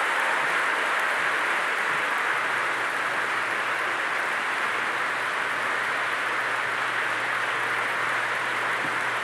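Large audience applauding steadily, a dense unbroken clapping that holds at an even level.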